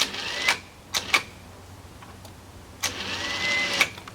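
Winch on a log arch jogged in two short runs, about half a second and then about a second, each with a faint motor whine, taking up the weight of a log. Two sharp clicks come between the runs.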